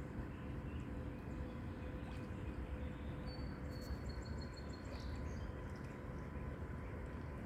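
Steady low rush of a running creek, with a short high bird call of several quick notes in the middle.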